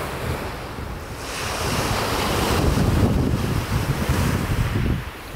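Sea waves washing onto the shore, swelling from about a second in, with wind buffeting the microphone.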